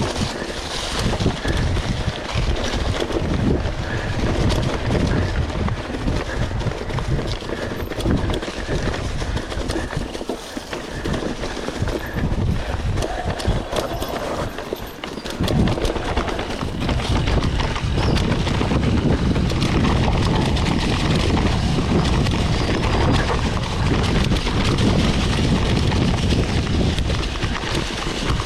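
Mountain bike riding over a rough, stony trail: wind buffeting the microphone over a constant low rumble, with the bike knocking and rattling over bumps. It eases off for a few seconds about ten seconds in, then picks up again.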